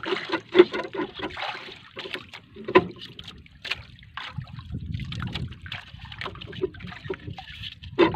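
Sea water splashing and lapping against a small outrigger boat's hull and float in short, uneven splashes, with a low rumble around the middle.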